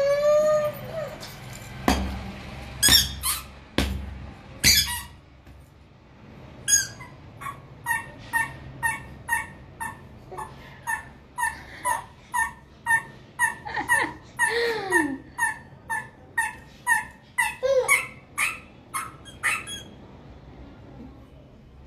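A few sharp knocks, then a run of short high squeaks about twice a second that stops shortly before the end.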